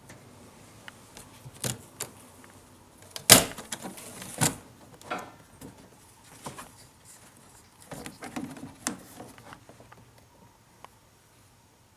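Hard-shell suitcase being handled and opened: a string of sharp clicks and knocks from its latches and plastic shell. The loudest comes about three and a half seconds in, with another cluster near eight to nine seconds.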